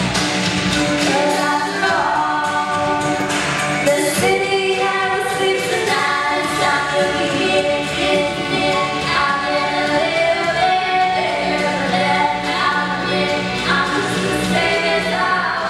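Two female voices singing a duet into microphones over an instrumental backing, with long held notes that glide between pitches.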